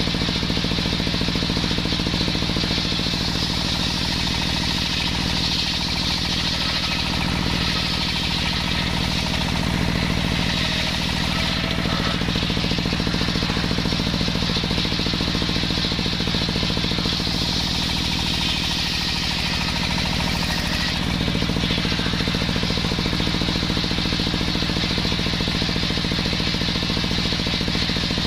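Engine-driven homemade circular saw running steadily while sawing waru wood, its tone shifting a few times as the blade works through the timber.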